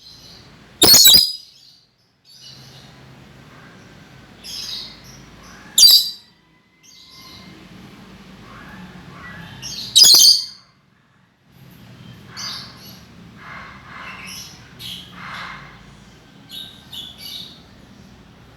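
Lory (nuri parrot) calling actively: three loud, harsh screeches about one, six and ten seconds in, with softer chattering calls through the latter part.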